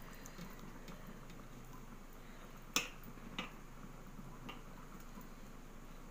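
Wet, sticky clicks of hands rubbing masala paste onto raw fish over a steel plate: one sharp click a little under three seconds in, a softer one about half a second later.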